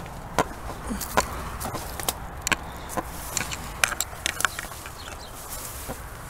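Footsteps wading through tall grass and weeds, with stems brushing and crackling in sharp, irregular clicks.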